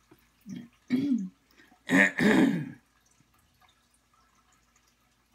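Short non-speech vocal sounds from a person, three in the first three seconds with the last, around two seconds in, the loudest and longest, in the manner of throat clearing or a chuckle; then faint light ticks.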